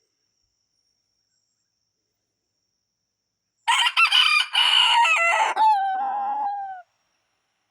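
A rooster crowing once, starting about three and a half seconds in: a loud crow of about three seconds that ends in a long drawn-out note sagging slightly in pitch.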